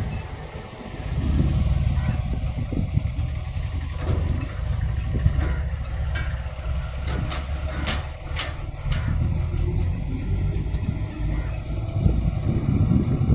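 A small pickup and then a heavy container truck drive past close by, a strong low engine rumble with tyre noise on the road. A few sharp clicks or rattles come in the middle as the truck passes.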